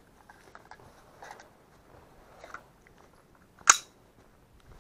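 Faint crunchy rustling and small clicks of handling and movement, with one sharp click about three-quarters of the way through.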